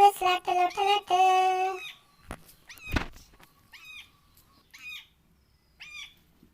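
Animal-call sound effects for attracting a cat: a quick run of short pitched calls ending in a longer held one, then short high chirping squeaks about once a second. A single sharp click comes about three seconds in.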